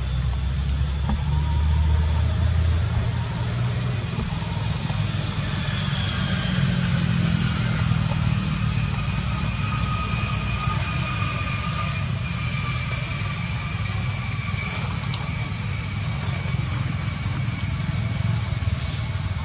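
Steady outdoor background: a continuous high-pitched hiss over a low rumble, with faint, slowly falling tones in the middle and a single sharp click about fifteen seconds in.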